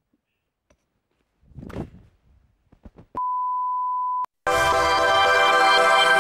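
A steady beep on one pitch, about a second long, then a TV channel's ident music starts about four and a half seconds in and is the loudest sound.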